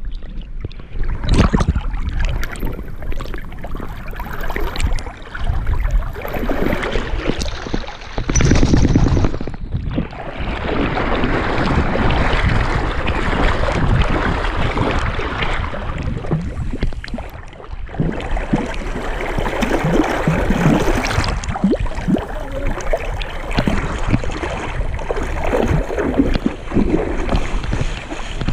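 A golden retriever swimming: water sloshing and splashing around its body and the back-mounted GoPro as it paddles, in an uneven run of small splashes.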